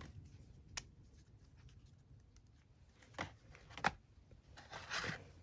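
Photo cards and their packaging being handled: a few light clicks and taps, and a brief rustle near the end.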